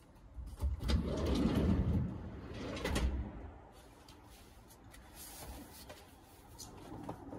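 Close handling noise from inside the car: rustling and knocking as things are moved about beside the phone, loudest from about half a second to three seconds in, then fainter rustling.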